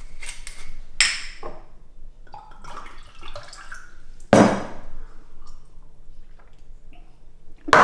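Liquid poured from a glass bottle, amid glassware handling on a kitchen worktop: a sharp clink about a second in and a louder knock a little after four seconds.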